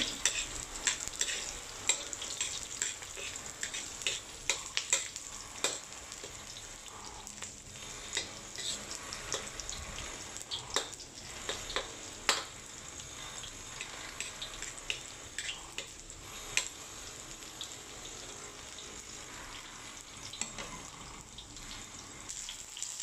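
Sliced garlic and ginger sizzling in hot oil in a metal wok, being fried until golden brown. A metal spatula scrapes and clacks against the wok as it stirs, often in the first part and less toward the end.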